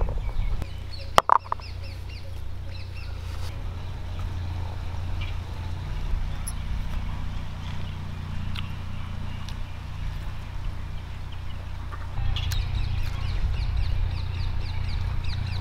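Birds calling in quick runs of high chirps, loudest in the last few seconds, over a steady low rumble; a single sharp knock about a second in.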